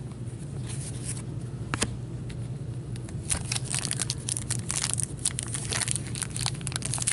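Foil wrapper of a 2015-16 Upper Deck MVP hockey card pack crinkling and tearing as it is opened. There are a few light clicks at first, then the crackle starts about three seconds in and grows denser.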